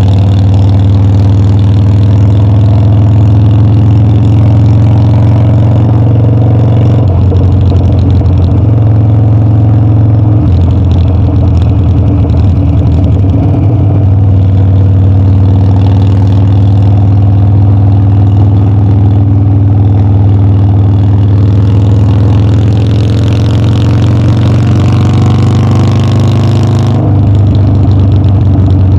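Harley-Davidson Dyna's V-twin engine running under way as the bike is ridden, its note mostly steady with a few throttle changes. Near the end the pitch climbs steadily for several seconds, then drops suddenly, as at a gear change.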